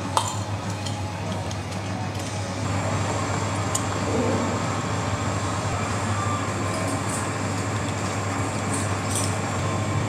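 Steady low hum and hiss of room noise, with a few light clicks and clinks: one just after the start, one about four seconds in and one near the end.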